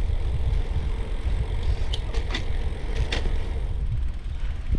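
Wind rumbling on the microphone while moving outdoors, with a few brief high squeaks or chirps about two to three seconds in.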